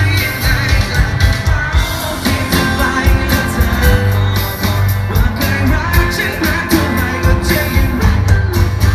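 Male pop singer singing live into a microphone over loud, upbeat amplified backing music with a steady drum beat.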